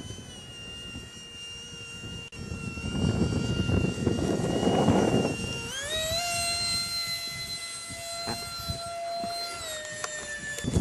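Radio-controlled He 162 jet model flying past, its engine giving a steady high whine. The whine's pitch jumps up sharply as the throttle opens about six seconds in, holds, and eases off slightly near the end. A rushing noise swells before the rise as the model passes low.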